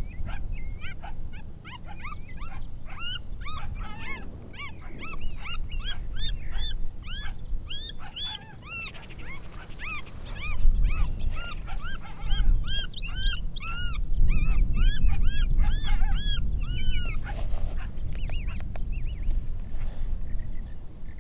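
A chorus of coyote yips: many short, rising-and-falling high calls overlapping for most of the stretch and thinning out near the end, over a steady low rumble.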